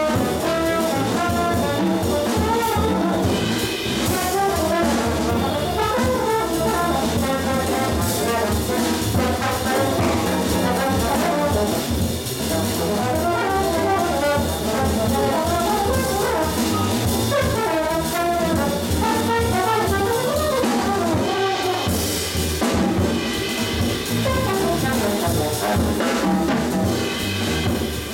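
Jazz quartet playing: a trombone leads with melodic lines over piano, upright bass and drum kit.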